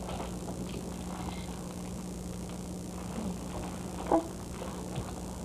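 Steady low hum and hiss, with faint rustling and soft handling sounds and a brief voice sound about four seconds in.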